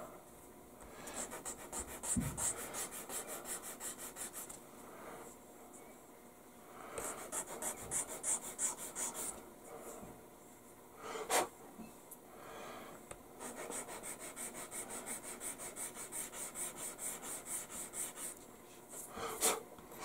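Sanding stick rubbed back and forth over a small photo-etched metal part, smoothing away the cut attachment point. It runs in quick, even strokes of about three to four a second, in three runs with short pauses, and a single sharp click about eleven seconds in.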